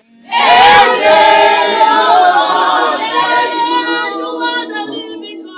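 A congregation singing a worship song together without instruments, many voices at once, coming in loudly just after the start.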